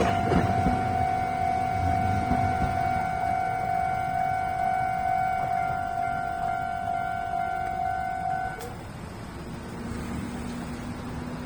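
Japanese railway level-crossing warning bell ringing with a steady electronic tone while the rumble of the just-passed train fades. The bell cuts off abruptly about eight and a half seconds in as the crossing clears, and a faint low hum follows.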